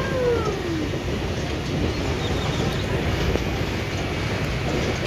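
Small children's Ferris wheel running, its drive and rotating frame giving a steady low rumble. A short falling voice sounds right at the start.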